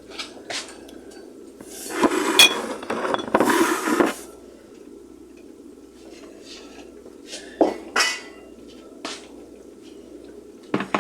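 Kitchen dishes, pots and utensils being handled. There are scattered knocks and clinks, and a dense stretch of clattering about two to four seconds in.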